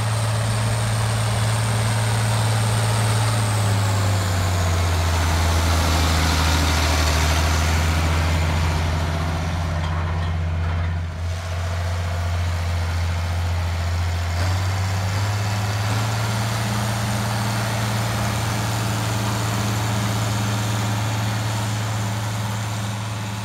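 International 1566 tractor's six-cylinder diesel engine running under load while pulling a rolling mulcher. The engine note drops about four seconds in and rises again about two-thirds of the way through.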